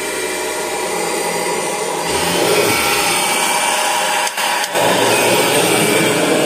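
Kirby Generation 4 upright vacuum cleaner running steadily. It gets louder about two seconds in and briefly drops twice a little past four seconds.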